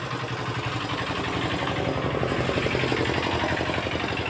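A small engine running steadily at idle, with an even, rapid pulse.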